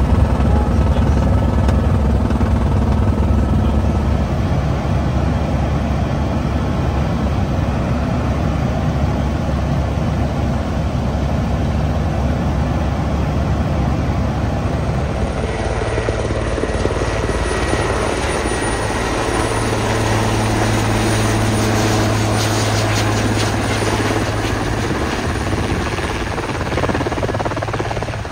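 Military helicopter running in flight: continuous rotor and turbine noise. About halfway through the sound changes, with a steady low hum coming in and more high-pitched noise above it.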